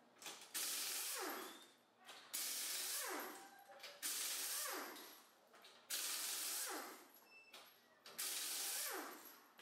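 Pneumatic impact wrench on the wheel's lug nuts, run in five short bursts, one per nut: each a loud air hiss that winds down in pitch as the trigger is released. This is the wheel coming off so the hub can be bolted to the hub dyno.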